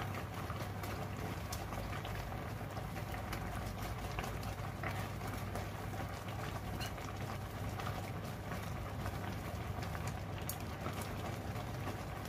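Rice and chicken broth bubbling in a clay pot on medium heat as the broth is nearly absorbed, with small scattered pops and clicks over a steady low hum.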